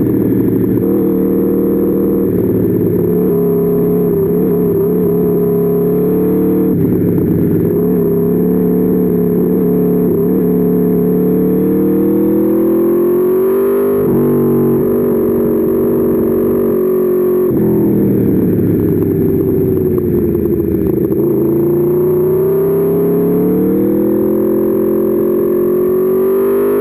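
Aprilia Tuono V4's V4 engine running hard on track, the revs climbing and falling as the bike accelerates, shifts and brakes, with a few sharp drops in pitch between long rising pulls.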